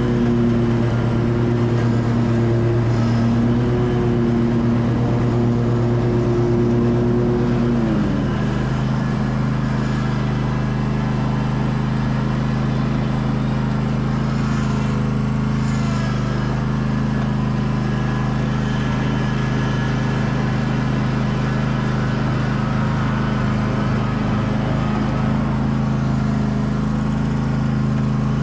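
Lawn mower engine running steadily at full throttle. Its pitch dips slightly about eight seconds in and then holds steady.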